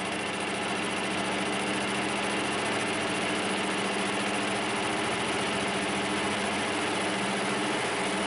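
Metal lathe running under a cut, its turning tool cutting a steel workpiece with flood coolant. A steady hum at several fixed pitches sits over an even hiss.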